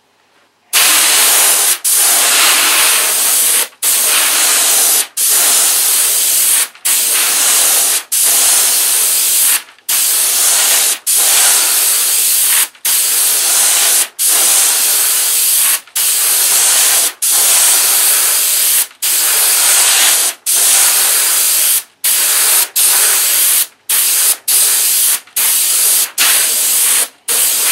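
Siphon-feed airbrush spraying a coat of blue paint: a loud hiss of air and paint in passes of one to two seconds, broken by many brief stops as the trigger is let off, the stops coming closer together near the end.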